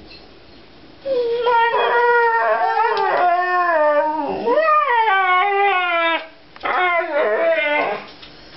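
Siberian huskies howling: a long, wavering howl starting about a second in, a brief break, then a shorter wavering howl near the end. It is the howl they give to ask to be taken for a walk.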